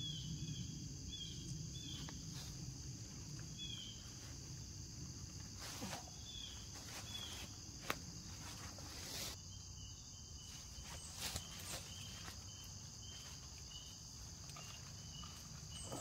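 Steady insect chorus, crickets or similar, trilling high and constant, with rows of short repeated chirps and a few light knocks and rustles.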